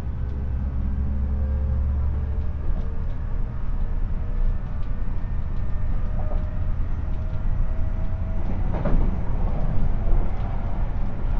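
Running noise heard inside a JR Central 373 series electric train's motor car under way: a steady low rumble of wheels on rail with faint motor whine tones drifting slowly in pitch, and a burst of clattering about nine seconds in.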